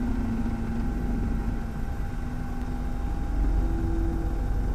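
Helicopter engine and rotor noise: a steady low rumble with a few held tones above it.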